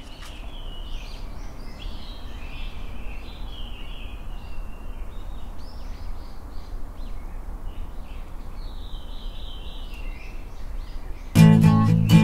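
Small birds chirping in many short, overlapping calls over a steady low background rumble. Acoustic guitar music starts abruptly near the end.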